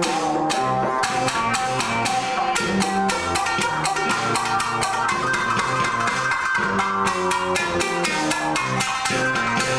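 Electric Tsugaru shamisen playing a fast run of sharp plucked notes over a steady rhythm of percussive hits.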